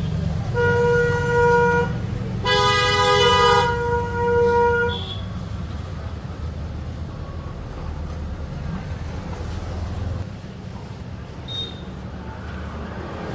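Vehicle horns honking twice: a shorter blast, then a longer, louder two-note blast about two and a half seconds in. Both sound over a steady low rumble of street traffic.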